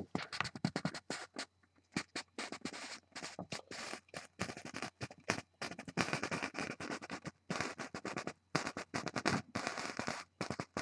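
Irregular scratching and rustling from things being handled and shifted close to the microphone, coming in bursts with short pauses between.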